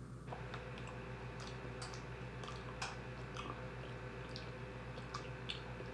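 People chewing chocolate-covered ants, with irregular small mouth clicks and crunches about once or twice a second.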